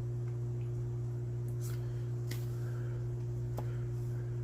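A steady low electrical hum, with a few faint clicks and swishes of trading cards being handled and slid past one another.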